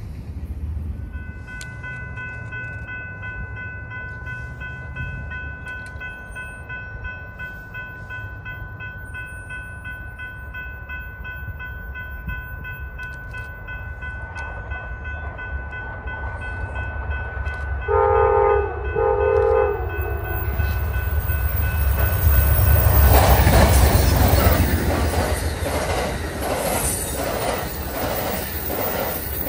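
Amtrak Superliner passenger train approaching and passing. The locomotive horn sounds two short blasts about two-thirds of the way in, then the locomotive rumbles loudly by, followed by the rhythmic clickety-clack of the bilevel cars' wheels over the rail joints. A faint steady high ringing runs under the first part.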